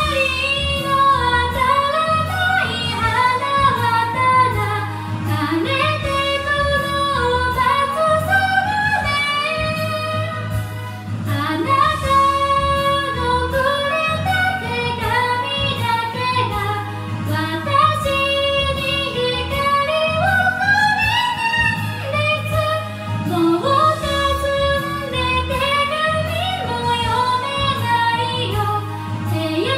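A woman singing a Japanese Vocaloid song into a handheld microphone, her amplified voice carrying the melody over a backing track with a bass line and a steady beat.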